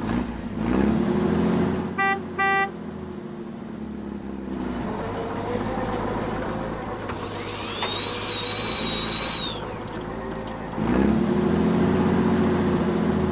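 Construction vehicle engine sounds revving up and down, with two short horn beeps about two seconds in and a high whine in the middle.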